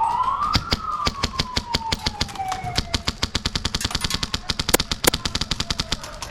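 A siren winds up to its peak about half a second in, then winds down over the next few seconds. Rapid airsoft gunfire starts as it peaks: many sharp cracks in quick bursts that run on throughout.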